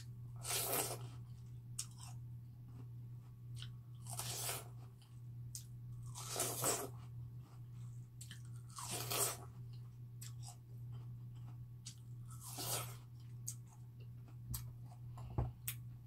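Crisp bites into slices of fresh watermelon held by the rind, close to the microphone, followed by chewing. There are five bites a few seconds apart, with small wet clicks of chewing between them and a steady low hum underneath.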